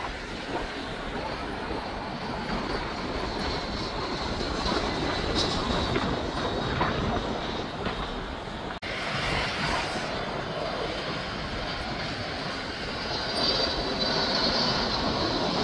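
Jet engines of aircraft on landing approach: first a business jet's engines, then, after an abrupt cut about nine seconds in, a Boeing 757's engines with a high whine that grows louder near the end.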